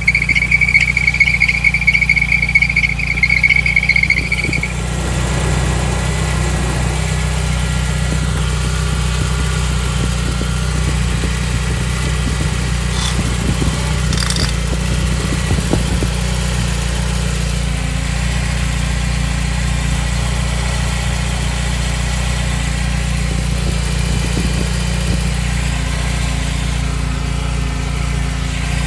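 BMW E30 318iS's power steering belt squealing, a loud steady high-pitched squeal that stops about four and a half seconds in, leaving the M42 four-cylinder engine idling steadily. The squeal is the sign of a slipping power steering belt, which squeals at start-up and when the steering is turned.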